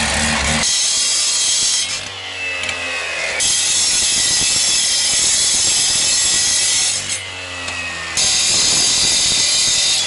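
A two-stroke K770 gas cut-off saw cutting through steel rebar at full throttle: a loud, high grinding screech. It breaks off twice, about two seconds in and about seven seconds in, when the engine pitch glides between cuts.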